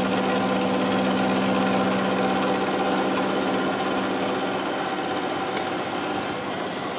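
Milling machine running with an end mill cutting a corner out of rectangular hollow-section tube: a steady, even machine hum that eases slightly in level toward the end.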